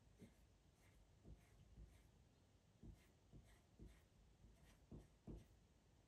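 Faint pencil scratching as short strokes trace lines over a printed photo laid on pastel paper, with a few soft knocks of the pencil and hand on the paper.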